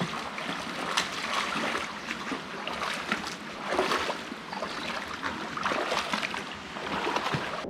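Creek water splashing and trickling over rocks, with many short splashes in a steady rush of water.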